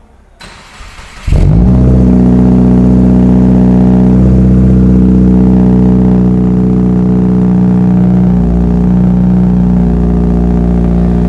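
2022 Subaru WRX's 2.4-litre turbocharged flat-four engine starting about a second in, then idling steadily.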